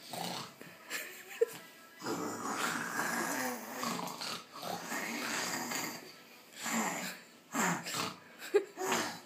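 A child imitating snoring with his voice: a long rasping snore lasting several seconds, then a few short bursts near the end.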